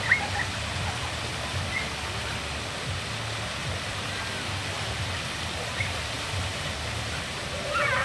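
Steady rush of water spilling over the rocks of a small waterfall. Short faint children's voices break in briefly, once right at the start and again near the end.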